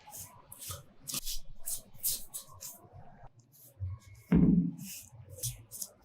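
Repeated short scraping strokes, about two or three a second, of hand work on a metal motorcycle part, with one louder knock a little past four seconds.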